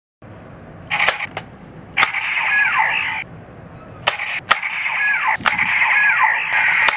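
Bandai DX Ziku-Driver toy belt with Zi-O and Build Ride Watches: sharp plastic clicks as the watches and buttons are pressed, over the belt's speaker playing an electronic standby loop with a falling tone that repeats every second or two.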